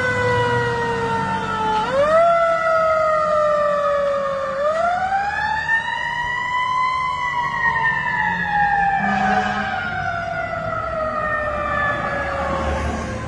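A fire engine's siren on a 2020 E-One Cyclone pumper, sounding as the truck responds to a call. It winds up quickly and falls slowly twice, then rises more slowly to a peak and falls away. It grows gradually fainter as the truck drives off.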